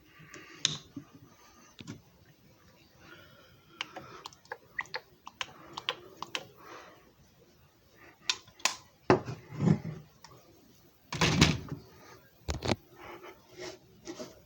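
Handling noises: irregular light clicks and taps, with heavier knocks about nine seconds in and the loudest clunk about eleven seconds in, followed by another shortly after.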